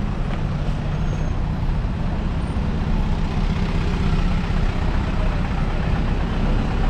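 City street traffic: a steady low rumble of cars in a jam, with no single vehicle standing out.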